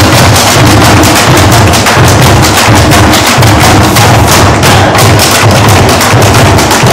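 Several drums made from recycled plastic bins, slung like dhols and beaten with sticks, playing a loud, continuous Bhangra rhythm together with a pulsing low drum beat.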